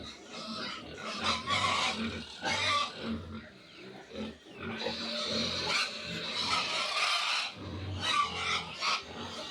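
Three-day-old piglets squealing in a string of shrill bursts, each about a second long with short breaks between.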